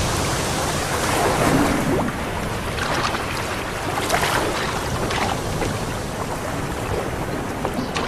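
Sea waves and wind: a steady rushing wash of water with a few brief louder surges.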